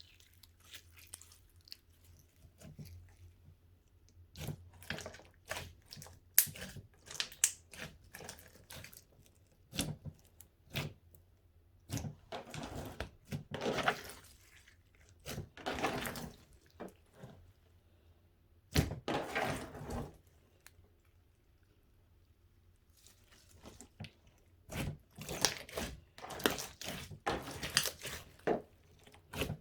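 Hands squishing, stretching and folding a clear, glossy slime in irregular bursts of wet, sticky crackles and pops. There is a quieter pause partway through before the squishing picks up again.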